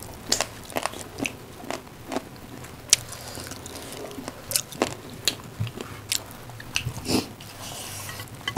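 Close-up eating sounds of rice and chicken gravy eaten by hand: wet lip smacks and chewing, heard as many short irregular clicks.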